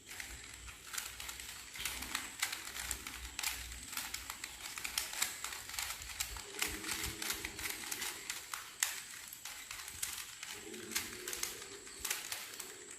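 Plastic Rubik's cube being twisted quickly, layer after layer, giving a fast, irregular run of small clicks and clacks.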